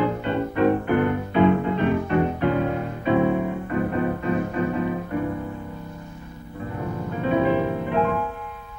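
Solo piano accompaniment playing quick, detached chords, which thin out about five seconds in; a fast rumbling tremolo then swells up and fades away near the end.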